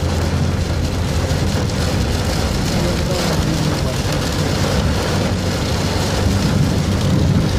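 Heavy rain hissing on a moving car, over the steady drone of its engine and tyres, heard from inside the cabin.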